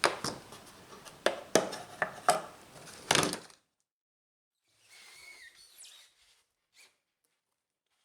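A quick series of sharp wooden knocks and clatter, stopping about three and a half seconds in. Later comes a faint brief squeak with a gliding pitch, then a single faint click.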